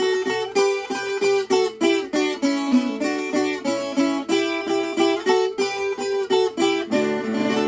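Viola campaniça, the steel-strung Alentejo folk guitar, playing an instrumental passage: a steady rhythm of plucked and strummed notes.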